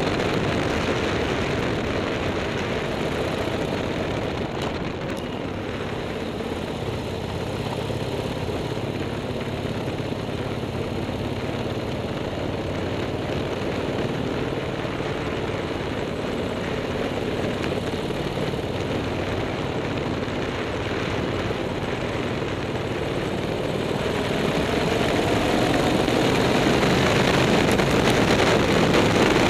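A vehicle's engine running steadily under load as it climbs a mountain pass road, growing louder and rising in pitch over the last few seconds.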